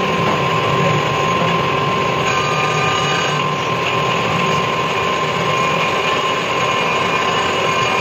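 Metal lathe running and cutting into a spinning steel part, throwing sparks. A loud, steady machining noise with a constant high whine.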